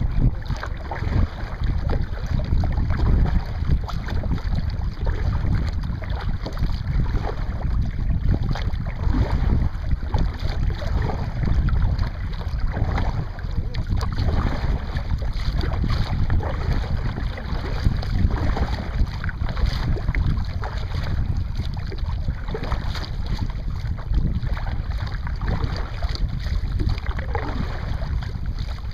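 Wind rumbling steadily on the microphone over water lapping and splashing around a kayak on rippled open water.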